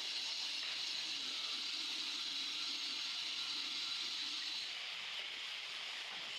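Steady hiss, a little quieter about five seconds in.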